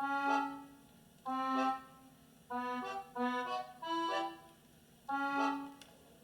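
Music played through a JBL Boombox 1 portable Bluetooth speaker: a melody of short pitched phrases, each about half a second long, separated by brief pauses, with little bass.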